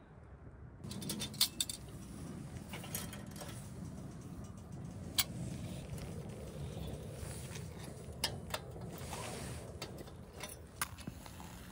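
Handling noise of a padded heated vest: fabric rustling starting about a second in, with scattered sharp clicks, about eight in all.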